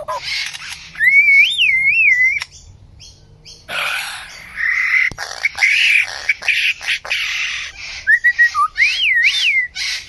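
Lyrebird mimicking a series of other birds' calls. Clear, warbling whistles rise and fall about a second in and again near the end, with harsh, rasping calls and sharp clicks in between.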